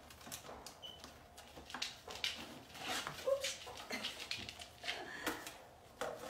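German shepherd puppies scrambling and scuffling on a plastic step, with many short clicks and knocks and a couple of short whimpers.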